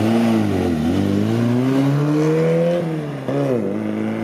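Triumph Spitfire Mk III's four-cylinder engine being driven hard: the revs dip briefly, climb steadily for about two seconds, then fall away. About three and a half seconds in there is a quick rise and drop, and then the revs climb slowly again.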